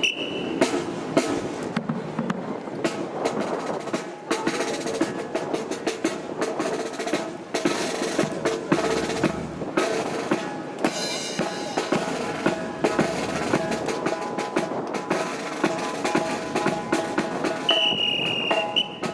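Brass and percussion marching band playing, with held brass notes over a busy snare drum and bass drum beat.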